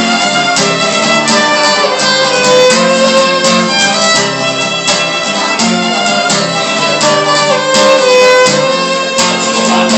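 Instrumental passage of a folk song: a fiddle melody over steadily strummed acoustic guitar.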